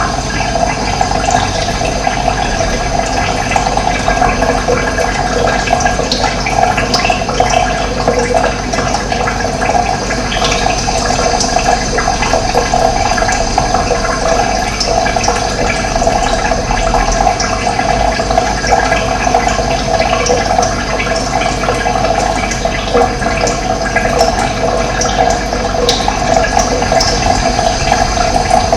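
Running water, a steady rushing flow.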